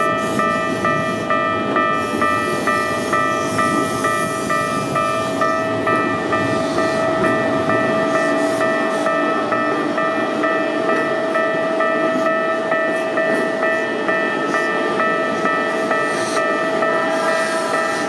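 Level crossing warning bell ringing in a rapid, even rhythm while a Keikyu 2000 series electric train rolls past over the crossing, its wheels making a steady rumble. Near the end more tones join the bell.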